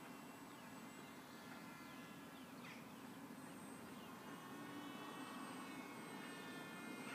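Faint whine of a small RC flying wing's electric motor and propeller in flight, several high tones together, with the pitch sliding down now and then as it passes.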